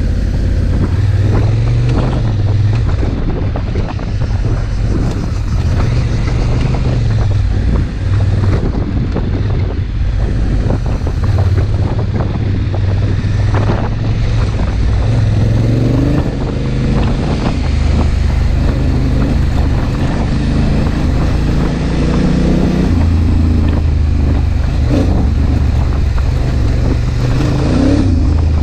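Large adventure motorcycle's engine running while riding a sandy dirt track, its note rising and falling with the throttle, under heavy wind noise on the camera microphone. Occasional short knocks come through from the rough surface.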